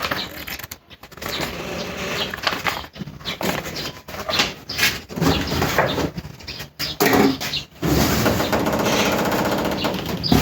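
Irregular rustling and knocking of packaging and loose parts being handled, with short pauses between. About eight seconds in, a steadier, denser sound takes over and holds to the end.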